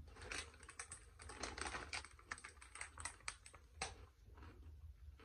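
Crisp crackling clicks from crunching a roasted garlic bagel chip and handling the crinkly chip bag. The clicks come thick and fast for about three and a half seconds, then fall to a faint scatter.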